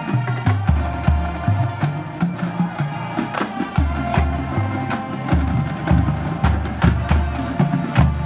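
High school marching band playing: a line of tuned marching bass drums strikes a run of low notes at different pitches, about three strokes a second, under held brass and wind chords, with sharp clicking percussion hits throughout.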